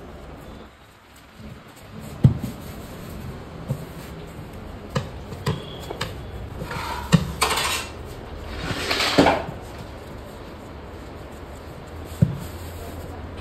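Metal pots and utensils clattering: scattered sharp clinks and knocks, with two brief rushes of noise around the middle.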